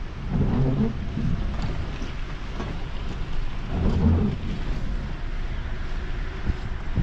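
Heavy rain with a steady low rumble, and two louder low swells about half a second and four seconds in.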